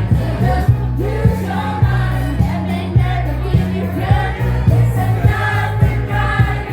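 Pop music played loud through a disco sound system, with a steady bass line and beat and a group of voices singing.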